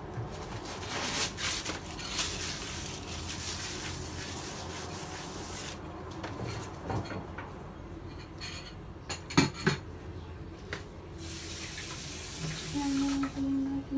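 Water running in stretches, like a tap, with a sharp knock about nine and a half seconds in and a voice humming near the end.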